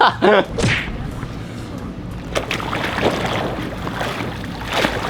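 Swimming-pool water splashing and sloshing, with a few sharper splashes.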